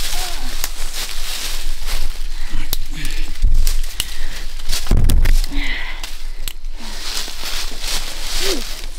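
Dense brush crackling and twigs snapping as people force their way through thick holly and pine undergrowth, with footsteps in the leaf litter. There are two heavy thumps about three and a half and five seconds in, and a few short vocal sounds.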